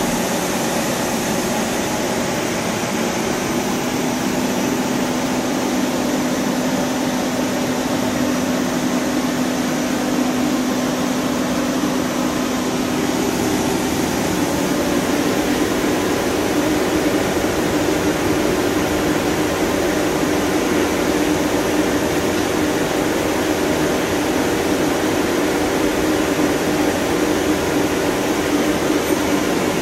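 Steady mechanical hum and whir of a Hyundai Kia SKT250MS CNC turning center running under power, with a low steady tone that steps up slightly in pitch about halfway through.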